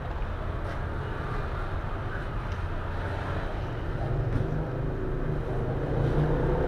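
Low rumble of a motor vehicle engine going by, growing louder near the end.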